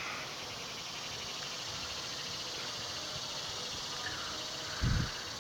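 Insects trilling steadily in rapid pulses, with a brief low thump near the end.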